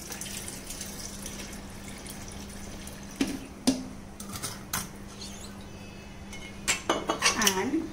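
Milk being poured from a glass bottle into a plastic blender jar of blended mango and ice, a steady splashing pour, followed by a few sharp clinks and a cluster of knocks of glass and plastic near the end.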